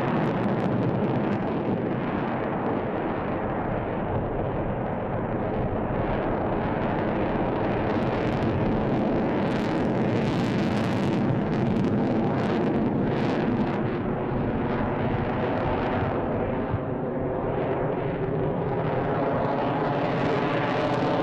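F-22 Raptor's twin Pratt & Whitney F119 turbofan engines roaring in flight during a demonstration pass, a steady jet noise that grows hissier in the middle and takes on a sweeping, phasing sound near the end.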